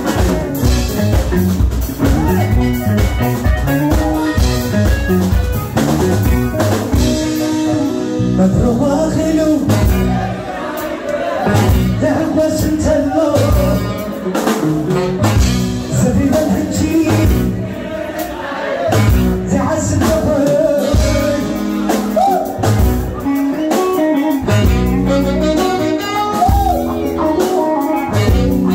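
Live band music: a man singing into a microphone over electric guitar, saxophone and drum kit, playing without a break.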